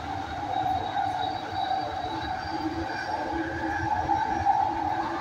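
AirTrain JFK car running along its elevated guideway, heard from inside the car: a steady rumble from the running gear with a whine held in several tones, growing slightly louder.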